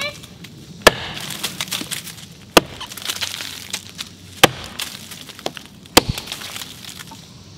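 Antique bearded axe chopping into a fallen log: four sharp blows, one about every two seconds, as the blade bites a notch into the wood.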